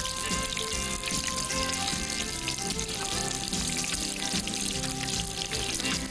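Shrimp deep-frying in plenty of hot oil in a stainless steel pan, a dense, steady crackling sizzle, with background music underneath.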